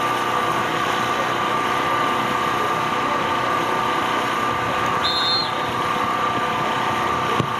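A steady, machine-like hum with faint voices in the background, and a short, high whistle blast about five seconds in.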